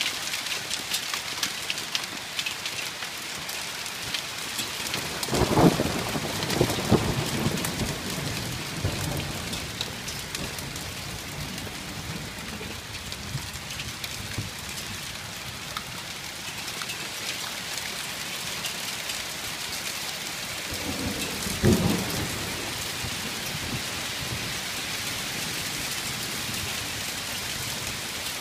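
Hail falling hard on a wooden deck and a glass patio table: a dense patter of small ticks over a steady hiss. Two low rumbles come about six and twenty-two seconds in.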